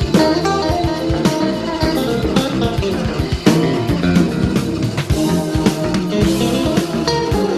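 Background music led by guitar, with bass and light drums.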